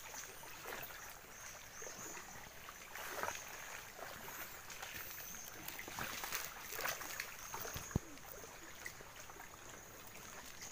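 Faint lapping and trickling of shallow sea water at the shoreline, with a few soft disturbances and one sharp click about eight seconds in.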